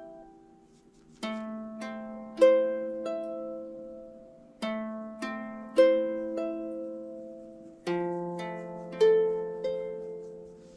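Calm background music of slow plucked-string notes, each struck and left to ring and fade, in short phrases of a few notes that begin about every three seconds.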